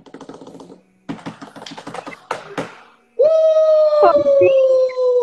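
A run of irregular clicks and rustles, then about three seconds in a man's long, loud held shout of excitement, its pitch sliding slowly down.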